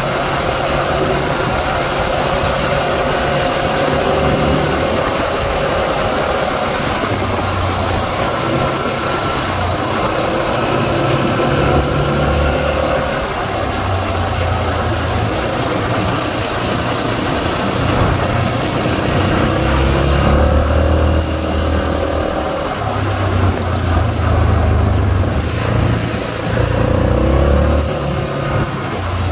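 ATV (quad bike) engines running, the pitch climbing and easing off as the throttle is opened and closed.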